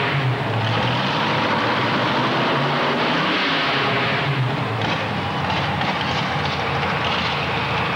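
Lifted pickup truck's engine running hard at high revs as it pulls a weight sled: a loud, steady drone whose pitch wavers slightly.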